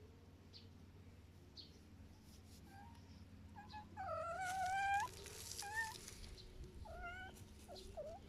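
Domestic cat meowing: one long meow about halfway through, followed by a few shorter meows.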